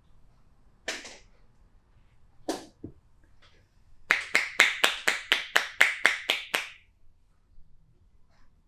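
Hands striking the body in percussive massage: two single slaps, then a quick even run of about eleven clapping strikes, roughly four a second.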